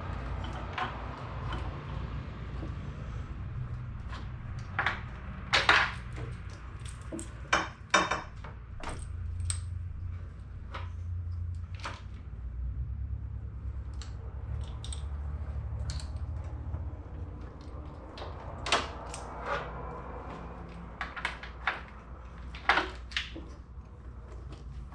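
Scattered sharp metallic clicks and clinks of hand work as a clutch cable is hooked up at the pedal inside a Honda CRX, over a steady low hum.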